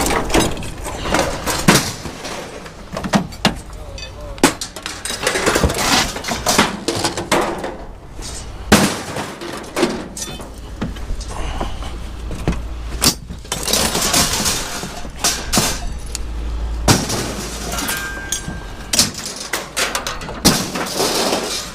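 Pieces of scrap metal being tossed by hand and clanking onto a pile, a long run of irregular sharp clangs and crashes. A low steady rumble runs through the middle stretch.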